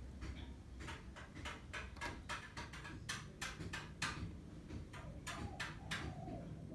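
Faint, irregular sharp taps, two to four a second, of a wooden barong mask being carved with chisel and mallet.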